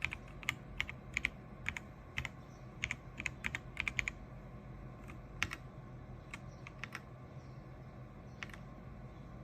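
Typing on an Ajazz AK820 gasket-mounted mechanical keyboard: a quick, irregular run of key clicks for about four seconds, then a few scattered single keystrokes.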